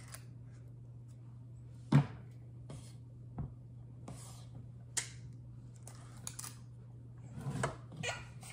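Scattered sharp clicks and taps of a big scoop against a muffin tin as muffin batter is portioned out, the loudest about two seconds in. A steady low hum runs underneath.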